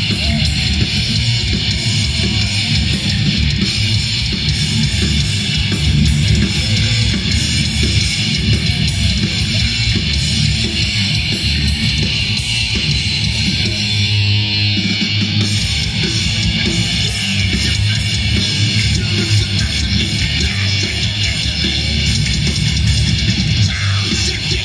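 Thrash metal band playing live, loud and steady, led by heavy electric guitars.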